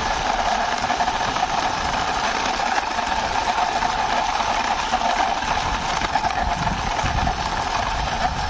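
A steady mechanical hum like an engine idling, holding one pitch throughout.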